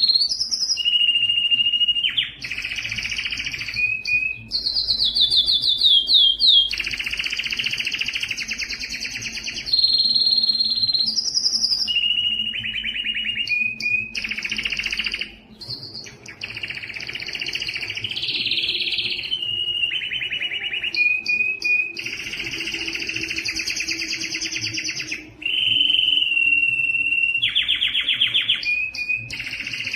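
Male domestic canary singing a long, loud song: fast trilled rolls of repeated notes alternating with steady clear whistled notes. The phrases follow one another with only two brief pauses, one near the middle and one later on.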